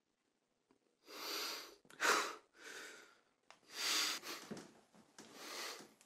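A man breathing heavily and sniffling in distress: four ragged breaths, one about a second in, one at two seconds, one around four seconds and a softer one near the end.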